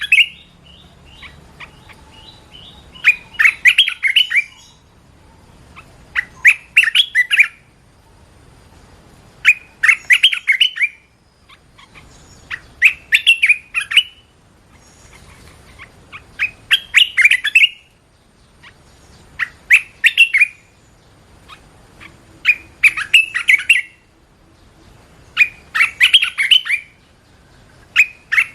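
A caged bulbul sings loud, short bubbling phrases of about a second each. It repeats them every two to three seconds.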